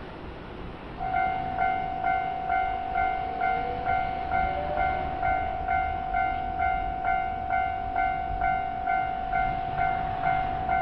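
Japanese railway level crossing warning bell starting about a second in, ringing in even electronic strokes about twice a second, over a steady low rumble.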